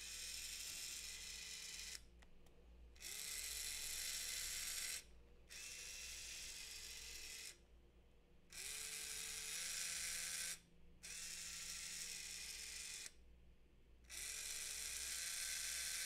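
Small DC gear motor driving the robot's right wheel, whining in runs of about two seconds with short stops between them, stepping in pitch within each run as the test code changes its speed and direction. Only one wheel is turning: the left motor is silent, which is put down to a probably disconnected wire.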